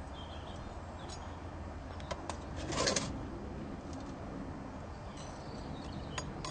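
Outdoor garden ambience: a steady low rumble with a few faint bird chirps, and a brief rustle or scrape just before three seconds in.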